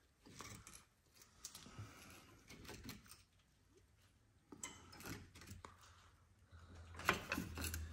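Faint, scattered metallic clicks and scrapes of hand tools working at a disc brake caliper as a pry bar levers the caliper back to collapse the piston.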